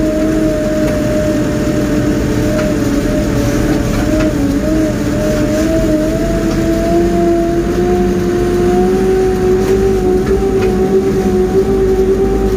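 Pick-and-carry mobile crane's diesel engine running steadily under way, heard from inside its cab, with a steady whine whose pitch creeps up slightly in the second half.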